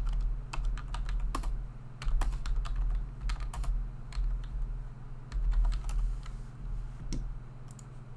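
Typing on a computer keyboard: irregular runs of key clicks with dull low thuds, over a steady low hum.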